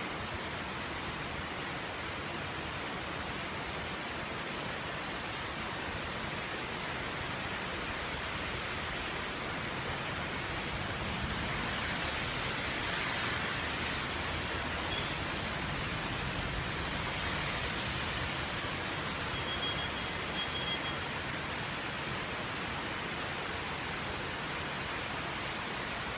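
Waterfall: a steady rush of falling water, swelling slightly through the middle.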